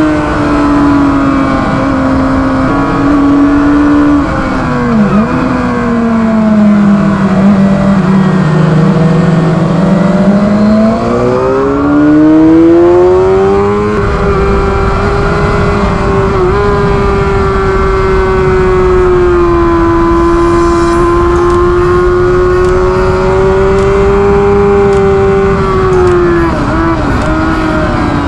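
Onboard sound of a 2007 Suzuki GSX-R600's inline-four engine racing on track under a steady rush of noise. The pitch dips and falls through the early corner, climbs again, holds high at full speed down the straight, then drops as it slows for the corner near the end.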